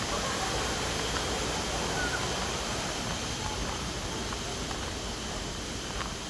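Waterfall rushing steadily, with a faint, brief bird chirp about two seconds in.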